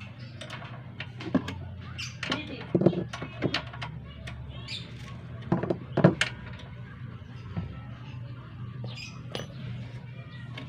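Scattered metallic clicks and knocks, loudest about six seconds in, from hands and a tool working on the spin dryer's drum and shaft set screws inside the spinner tub, over a steady low hum.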